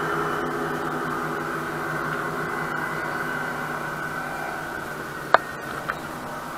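A steady hiss with a faint hum under it, broken about five seconds in by a sharp knock and then a lighter one as a small fish on a line is swung up against the bridge railing.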